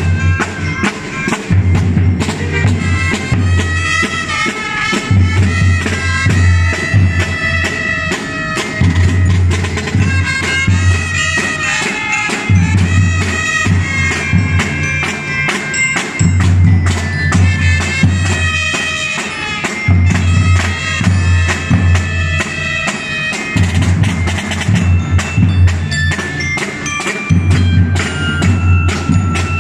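Street drum-and-lyre corps playing: snare drums beating a steady pattern while bell lyres ring out a melody.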